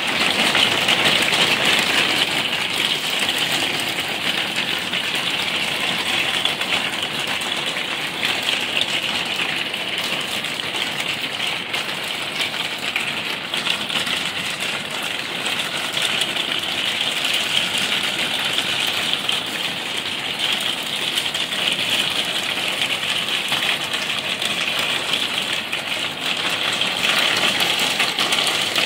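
Hailstones pelting a wooden deck, plant pots and a garden table: a dense, steady patter of countless small impacts.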